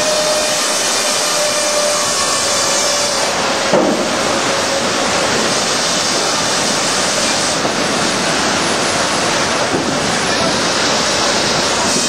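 Steam-powered sawmill machinery running: a loud, steady mechanical din with a held whine that stops with a short knock about four seconds in, the din carrying on after it.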